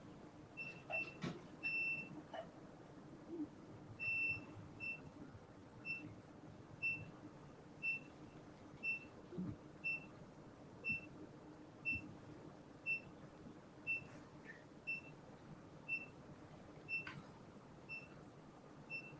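Operating-room medical equipment beeping: short electronic beeps of one steady pitch about once a second, some in quick pairs, with one longer beep about four seconds in, over a faint steady hum.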